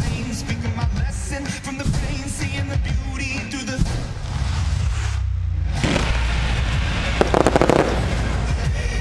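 Loud music plays. About halfway through, the pyrotechnics come in under it: flame projectors and fireworks with a deep rumble, then a dense hissing crackle.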